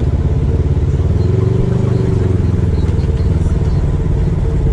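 Engine of a side-by-side off-road vehicle running at low speed, heard close from on board. Its pitch rises a little about a second in and settles back by the middle.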